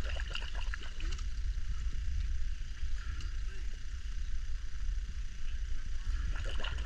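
Low rumble of lake water lapping against a camera sitting at the waterline, with clusters of small splashes around the start and again near the end.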